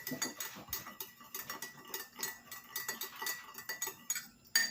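A spoon stirring in a cup, clinking against its sides in quick, irregular taps, with a louder clink near the end.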